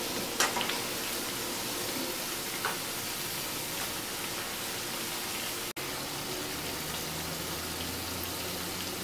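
Hot oil sizzling steadily as batter-coated cabbage pakodas deep-fry in a pan, with a few light clicks of a spoon against the pan in the first few seconds as they are turned. A low hum joins in near the end.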